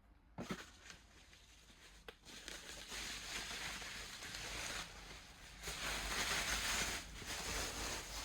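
Packaging being handled as pots and lids are unwrapped from their box: a knock about half a second in and another about two seconds in, then several seconds of rustling and crinkling wrapping.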